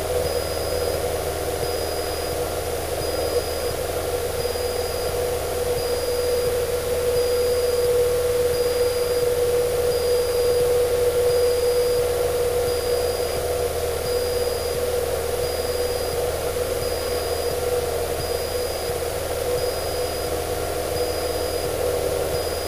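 Cessna 152's four-cylinder Lycoming engine and propeller at full power during the climb-out after takeoff, a steady drone heard from inside the cockpit.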